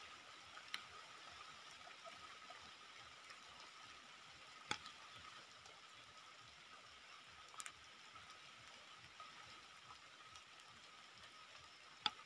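Near silence: faint outdoor ambience with a steady high drone and four scattered sharp ticks, the loudest near the end.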